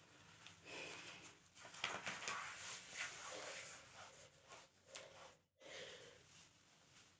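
A woman breathing hard while exercising, with light scuffs and thuds from her feet on a floor mat.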